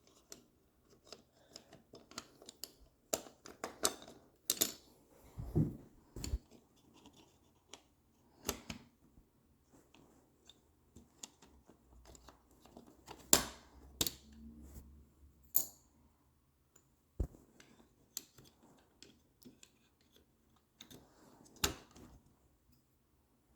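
Irregular light clicks and knocks of quadcopter frame plates and small hardware being handled and fitted together, with faint rubbing between them; the sharpest click comes about halfway through.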